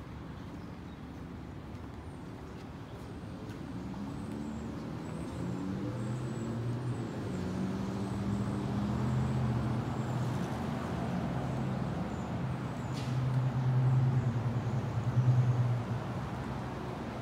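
A heavy vehicle's engine running in street traffic, growing louder over several seconds as it draws near, loudest near the end, then dropping away suddenly.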